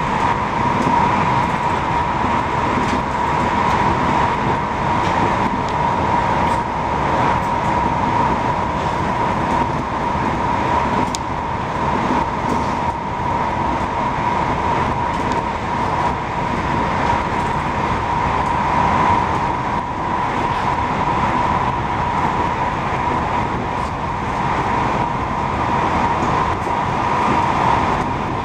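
Regional passenger train running at speed, heard from inside the carriage: a steady rumbling rush of wheels on rail, with a constant mid-pitched whine held throughout.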